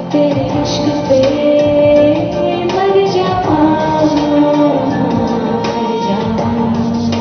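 Music track with a woman singing, holding long notes that glide slightly in pitch.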